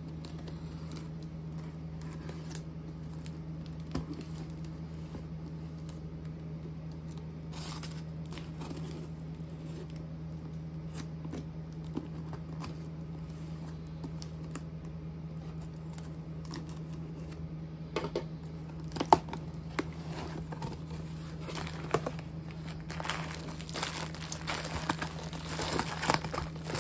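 Cardboard shipping box being opened: a box cutter scraping along the packing tape with scattered clicks and scrapes, then louder tearing of tape and rustling of cardboard flaps and bubble wrap in the last few seconds. A steady low hum runs underneath.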